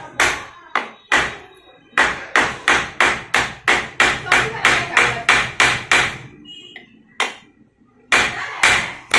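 A hammer strikes rivets on an AP fan motor's end cover, with the rivets backed on a chisel set in a wooden block. The sharp metallic blows come in a steady run of about three a second through the middle and are spaced out near the start and end. The rivets are being peened over to fix the cover that holds the motor's new bush.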